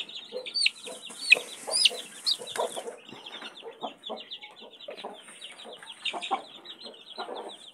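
A group of young chicks peeping rapidly and without pause, with several louder peeps sliding downward in pitch in the first couple of seconds. Shorter, lower clucking calls sound underneath.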